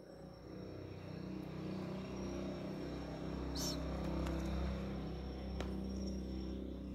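A motor vehicle engine running steadily, a low hum that swells about a second in and then holds. A thin steady high tone runs under it, and a brief sharp click sounds near the middle.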